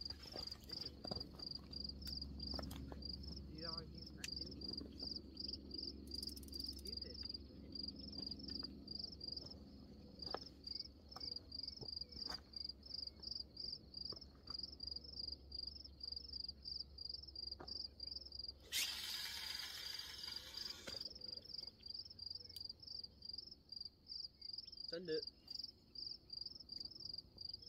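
Crickets chirping in a steady, even rhythm of about three high chirps a second. About two-thirds of the way in, a rush of noise lasts some two seconds.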